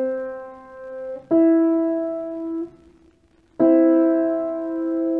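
Piano playing an interval for ear training: a lower note rings, a higher note about a third above it is struck a little over a second in, then both are struck together and left ringing, slowly fading.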